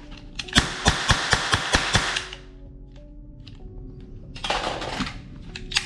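Plastic toy guns giving two rapid bursts of clicking and clattering pops, the first about two seconds long, the second shorter near the end, over soft background music.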